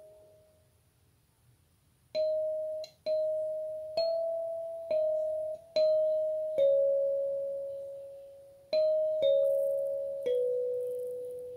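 Gecko wooden kalimba plucked with the thumbs, sounding single metal-tine notes that each ring on and fade. A held note dies away at the start, and after a pause of about two seconds about ten notes follow at an unhurried pace, stepping lower in pitch toward the end.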